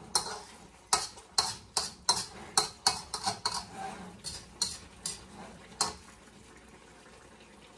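A spatula scraping and knocking against a metal wok as chicken is stirred: about fifteen quick strokes, stopping about six seconds in.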